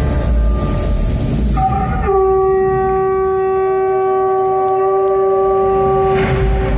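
Stage CO2 jets hiss loudly as they fire. About two seconds in, one long held horn-like chord from the arena sound system comes in and sounds for about four seconds. Near the end another burst of hiss starts as the jets fire again.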